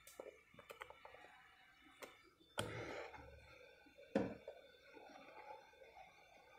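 Faint clicks and knocks from tools being handled over a phone circuit board on a workbench, with a short rustling burst about two and a half seconds in and a sharper knock just after four seconds.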